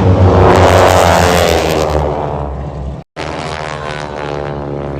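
Airplane flying low past, its engine loud and its pitch falling as it goes by. The sound cuts off abruptly about three seconds in and comes back as a steadier engine drone.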